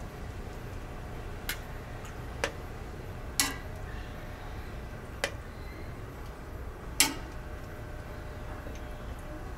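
Five sharp kitchen utensil knocks at uneven intervals, the loudest about three and a half and seven seconds in, over a steady low hum.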